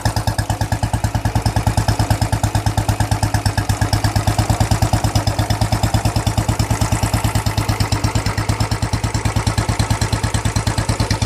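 Royal Enfield motorcycle engine idling with a steady, even thumping beat.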